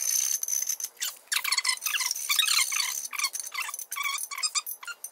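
Hand file rasping back and forth on the edge of a hole-saw cut in a thick aluminum intercooler end tank, in a quick run of scraping strokes: the hole's edge being cleaned up and deburred.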